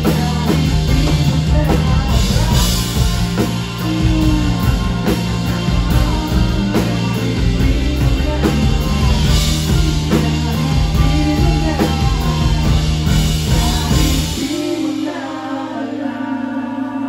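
Live rock band playing with lead vocals: drum kit, bass guitar, electric and acoustic guitars and keyboard. About three seconds before the end the drums and bass stop and a single held chord rings on: the song's final chord.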